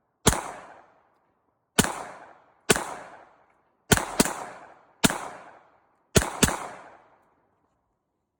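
Diamondback DB15 AR-15-type rifle firing 5.56 mm rounds: eight shots at an uneven pace, some in quick pairs, each followed by a rolling echo.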